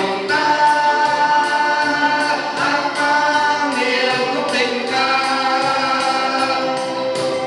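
Several men's voices singing a song together through microphones, holding long notes, over strummed acoustic guitar with a steady beat.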